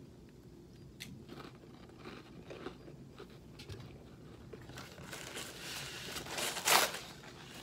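Crunching as a cracker is bitten and chewed, then a paper towel pulled off a roll and torn, rustling, with the loudest tear a little before the end.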